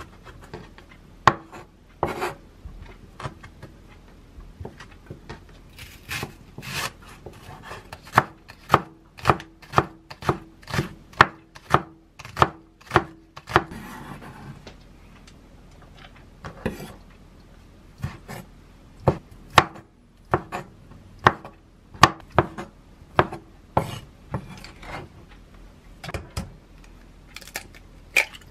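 Kitchen knife chopping on a wooden cutting board, first through bacon and then through cabbage: a run of sharp, uneven knocks, at times about two a second.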